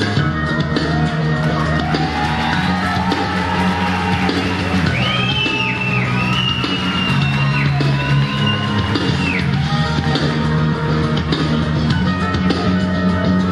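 Rock music with guitar and drums playing steadily, with a high gliding melody line about halfway through.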